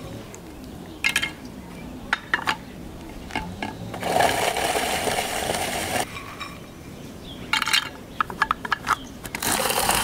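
Hand-cranked rotary nut grater grinding hazelnuts, with two stretches of steady grating about two seconds long, one about four seconds in and one near the end. Between them come sharp clicks and clatters of hard hazelnuts being handled and dropped into the grater.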